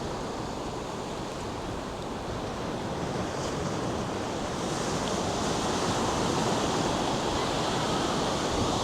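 North Sea surf washing onto a sandy beach: a steady rush of breaking waves that swells gradually louder about halfway through.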